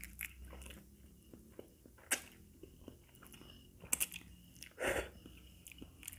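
Close-miked mouth sounds of eating fried instant noodles with cabbage: soft chewing with small wet clicks, two sharper clicks, and a short, louder slurp of noodles about five seconds in.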